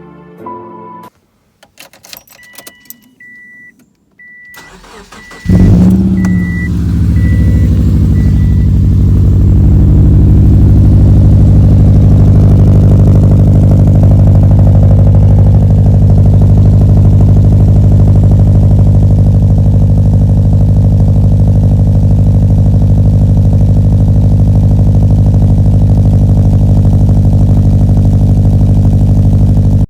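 A Subaru Impreza's flat-four cranks and catches about five seconds in, flares briefly, then settles into a steady, loud idle with the uneven rumble of unequal-length headers and no cat or silencer. Before the start, a car warning chime beeps at an even pace, continuing briefly once the engine is running.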